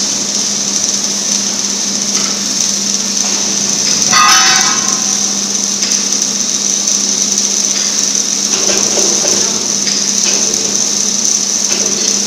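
CNC plasma cutting machine running: a steady high hiss over a constant low electrical hum. A brief pitched sound about four seconds in.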